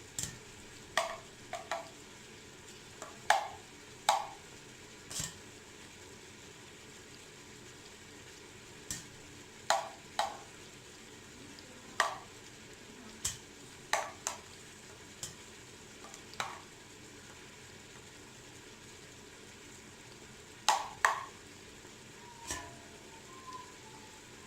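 Scattered sharp clicks and taps, with pauses of a few seconds between groups, as steamed dried figs stuffed with garlic are packed tightly by hand into a lidded jar.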